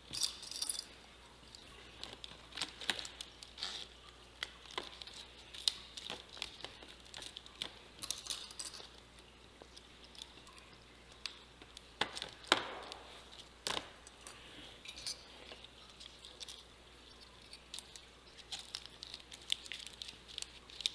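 Metal binder clips snapping onto the rim of a thin plastic tray over a mesh screen, with scattered clicks and light plastic rattling as the tray is handled; the sharpest clicks come a little past the middle.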